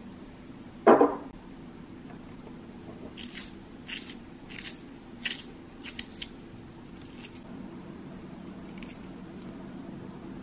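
A knock about a second in, then a glass-jar pencil sharpener shaving a wooden pencil: a run of about seven short, crisp scraping strokes as the pencil is twisted in the blade, with two fainter ones near the end.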